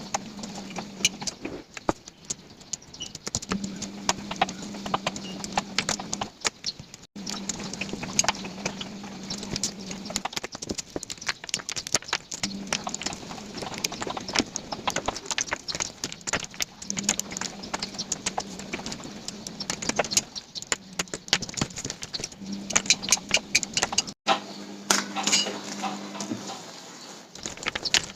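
Cardboard jigsaw puzzle pieces being handled, a steady stream of small irregular clicks and rattles as pieces are picked up, shuffled and set down. A low hum comes and goes underneath.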